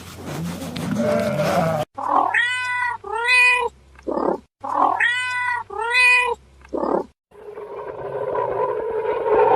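Cat meowing: a short run of drawn-out meows, the same run heard twice over. Near the end a rough, rising noise of another kind comes in.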